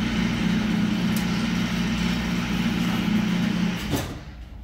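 Steady mechanical hum with a hiss over it, cutting off abruptly about four seconds in.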